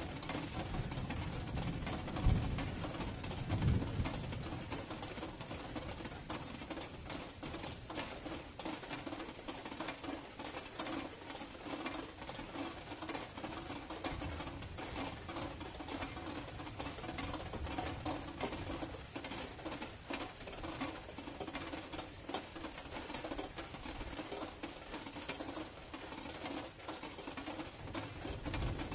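Steady rain pattering during a night thunderstorm, with a steady low tone underneath and low rumbles about two and four seconds in.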